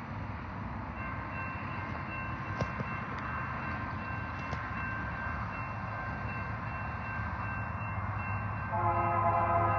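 An approaching train: a locomotive horn sounds steadily from about a second in and gets much louder near the end, over a low diesel rumble.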